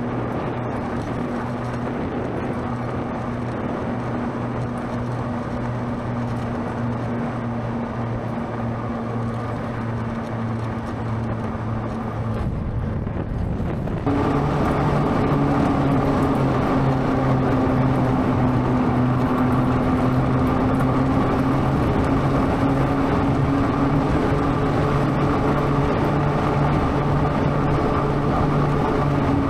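Homemade electric ATV's hub motors whining steadily, over tyre and wind noise, as the quad drives along a road. About halfway in the sound changes abruptly to a louder whine at a different pitch, which drifts slightly with speed.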